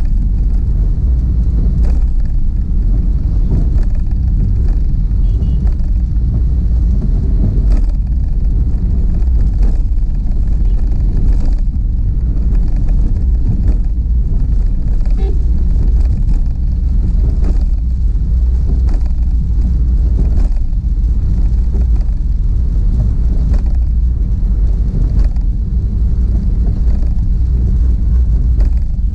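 Steady low rumble of a car driving on a wet road, heard from inside the cabin, with faint ticks now and then.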